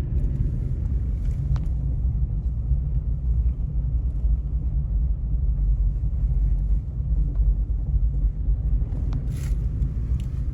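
A vehicle running with a steady low rumble, with a few faint clicks over it.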